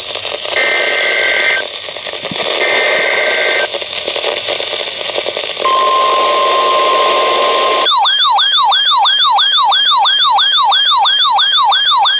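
Weather radio broadcast over hissy static: two short bursts of the two-tone digital SAME alert header, then the steady 1050 Hz NOAA Weather Radio alert tone starting about halfway in. About two-thirds in, the static stops and a fast-warbling electronic siren alarm takes over, about four to five sweeps a second, as the receiver sounds its alert.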